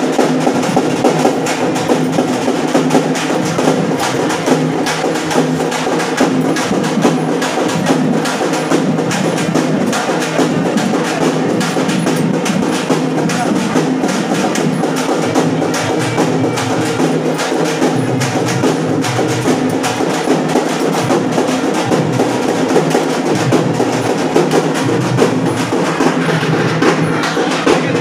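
Temple ritual music: fast, unbroken drumming and percussion strikes over a sustained tone, at an even level throughout.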